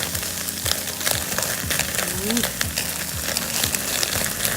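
Akaushi beef hamburger steaks sizzling in a pan over a wood campfire: a steady hiss scattered with many sharp crackles and pops.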